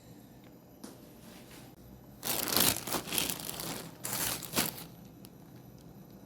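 Parcel packaging being crinkled and torn open by hand, in two bursts of loud crackling a little past the middle.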